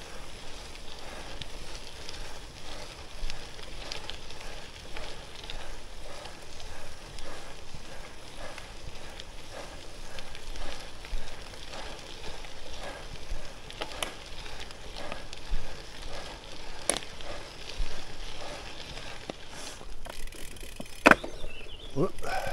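Gravel bike's tyres rolling over a loose gravel road: a steady crunching crackle. Scattered sharp clicks and rattles come from the bike and stones, a few of them louder.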